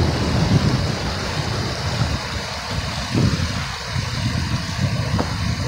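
Wind buffeting the microphone as a low, uneven rumble, over the steady rush of freeway traffic on the bridge overhead.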